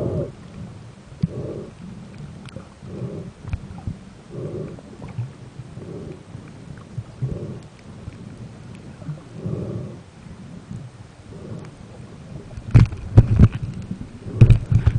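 Muffled underwater noise picked up by a camera sealed in an underwater housing: low rumbling pulses about every one and a half seconds, then a few loud sharp knocks near the end.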